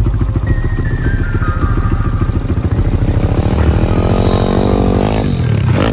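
Pit bike engines: one idles close by with a fast, even pulse, while another rides around the lot, its engine note first falling away, then rising as it revs up and dropping back near the end.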